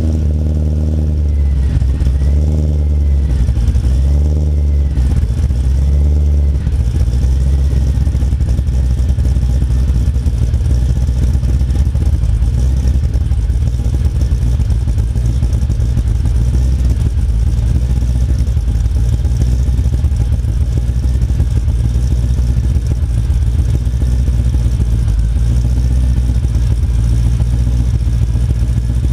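2009 Pontiac G8 GT's 6.0-litre V8 idling just after a cold start, its exhaust heard from close behind the car. The idle wavers in pitch for the first several seconds, then settles to a steady idle.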